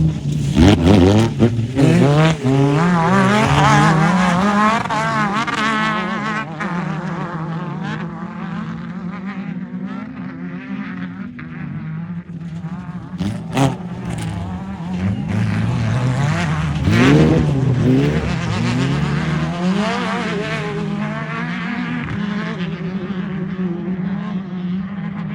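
Off-road race car engines revving up and down hard as the cars race past, with one sharp crack about halfway through.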